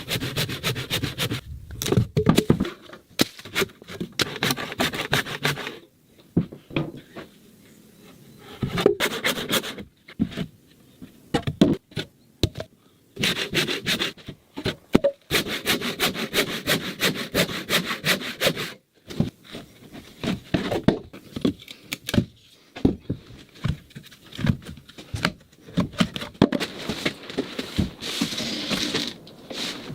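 Handsaw cutting through a log, in runs of quick back-and-forth strokes broken by short pauses.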